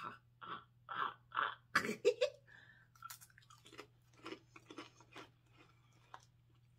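Ridged Lay's potato chip being bitten and chewed: crisp crunches, loudest in the first two seconds, then quieter chewing that dies away.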